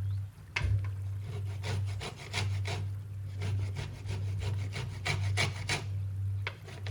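Rapid, rhythmic scraping strokes, about four a second, over a steady low hum. They start about half a second in and pause briefly near the end.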